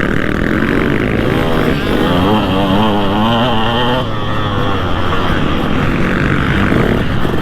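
2003 KTM 200 SX two-stroke motocross engine being ridden hard, its note rising and falling as the throttle is worked, with the quickest swings from about a second and a half in to about four seconds in.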